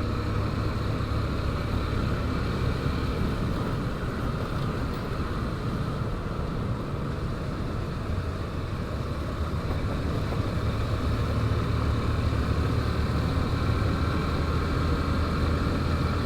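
Small motorcycle engine running at a steady speed while riding, with road noise around it.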